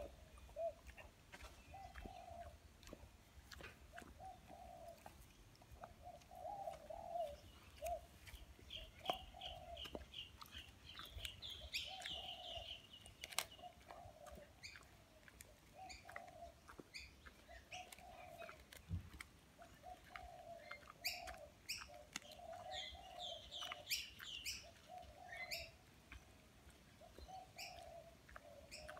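A black Labrador crunching and gnawing a frozen chicken wing, with sharp cracks now and then, while birds call around it: a low call repeated every second or so, and runs of high chirping trills about ten and twenty-two seconds in.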